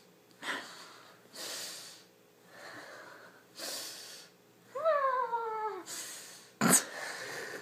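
A domestic cat hissing again and again, with one falling meow-like yowl about five seconds in and a sharper, louder hiss near the end.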